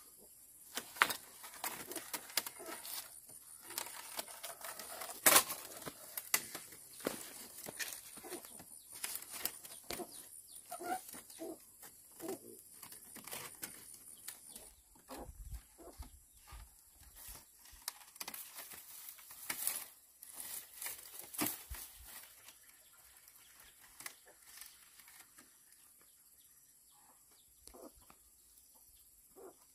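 Thin split-bamboo strips clicking, rattling and scraping against each other and against bamboo uprights as they are woven into a round coop wall, in irregular knocks with a few sharper cracks, thinning out over the last third.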